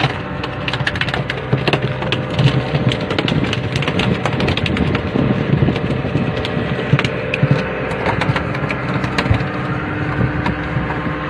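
Fishing boat's engine running steadily, with many sharp knocks and taps scattered through it.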